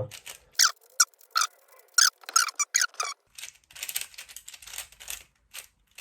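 Plastic 4x4 speedcube being turned by hand: separate squeaky clicks at first, then a quick run of rapid clicking turns.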